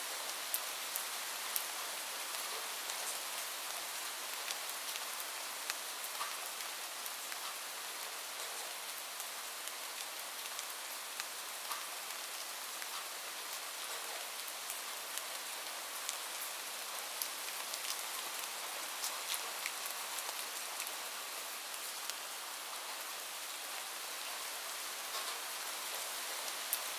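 Light rain falling steadily, a continuous soft hiss scattered with many small drop ticks.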